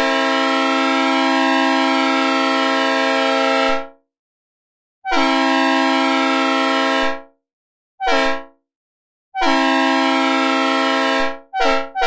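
Synthesized recreation of a Leslie S3L/RS3L three-chime diesel locomotive air horn sounding a steady chord in separate blasts: a long blast, a second long blast, a short toot, another long blast, and a brief one starting near the end. The long-long-short-long run is the grade-crossing signal.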